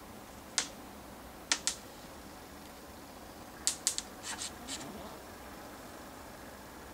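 A series of short, sharp clicks: one under a second in, a pair about a second and a half in, and a quick run of five or so around four seconds in, over a faint steady background hiss.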